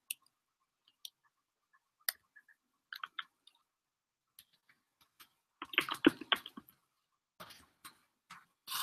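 Faint, scattered clicks of a computer keyboard and mouse, with a quick flurry of keystrokes about six seconds in.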